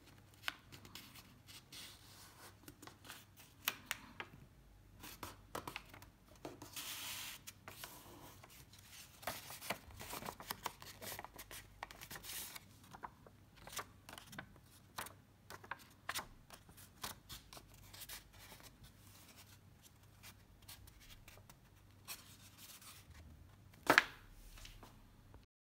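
Paper rustling and crinkling as a paper airplane is folded by hand, with many short, crisp creasing and sliding sounds. A single sharp tap, much louder than the rest, comes near the end.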